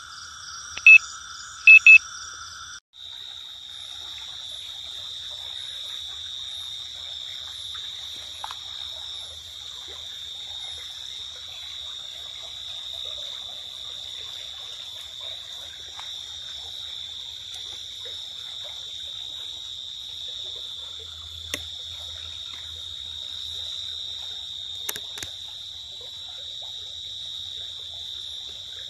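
Night chorus of crickets and other insects at a stream, a steady high-pitched trilling with a faint fizz beneath it. In the first three seconds a different chorus carries three loud short calls, then the sound cuts abruptly to the steady trilling; a couple of faint clicks come later.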